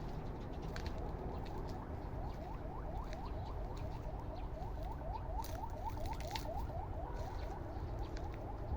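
A bird singing a long, rapid series of short rising notes, about five a second, beginning about two seconds in and stopping near the end, over a steady low rumble.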